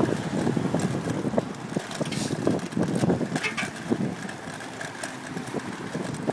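Riding a bicycle: wind buffeting the microphone, with irregular rattling knocks from the bike and the handheld camera over the bumps.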